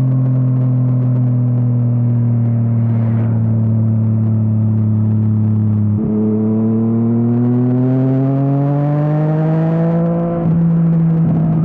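Yamaha MT-09's three-cylinder engine through an Akrapovič exhaust under riding load. The revs sag slowly for the first half, then climb steadily under acceleration, with a gear change about ten seconds in.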